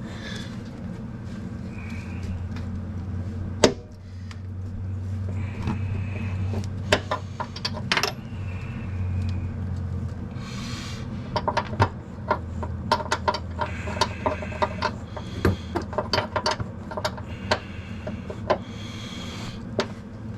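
Hand tools working on a car's brake line fittings: scattered metal clicks and clinks as a wrench is fitted and turned, with short rubbing sounds, over a steady low hum.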